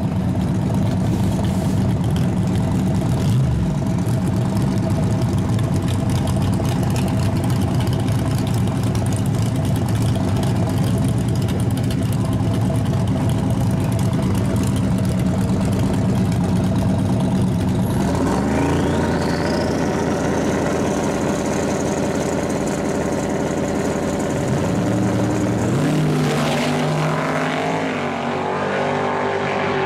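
Turbocharged drag-racing pickup engine idling with a steady rumble on the starting line. About two-thirds of the way in, a high turbo whine rises and holds as boost builds. Near the end the vehicles launch and pull away.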